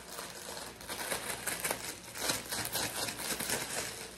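Zip-top plastic bag with flour and seasoned salt inside being shaken by hand, its plastic crinkling in quick, irregular rustles.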